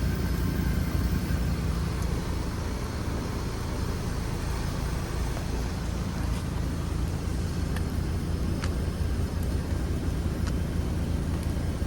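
Carrier Infinity 27VNA0 3-ton heat pump outdoor unit running steadily in heat mode: a low compressor hum with the fan's whoosh, plus a few faint ticks.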